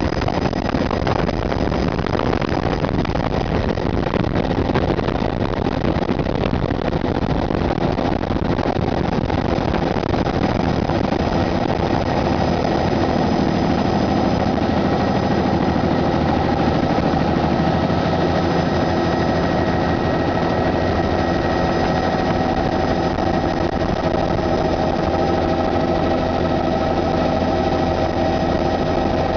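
Helicopter in flight heard from an open, doors-off cabin: steady rotor and engine noise with a constant high whine running through it.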